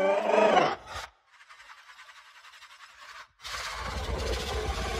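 Monster roar sound effect: a loud, pitched, wavering roar that cuts off about a second in, a faint hiss, then a deep rumbling growl that starts about three and a half seconds in.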